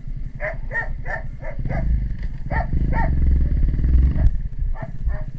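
A dog barking in quick runs of short barks, over a motorcycle engine running at low speed that grows louder from about two seconds in and then cuts off abruptly a little after four seconds.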